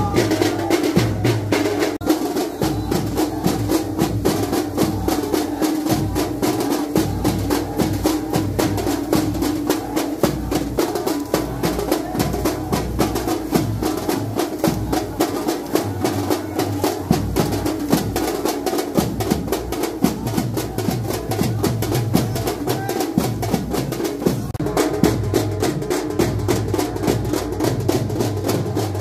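Drums beaten in a fast, continuous rhythm, with a crowd of men's voices chanting over them.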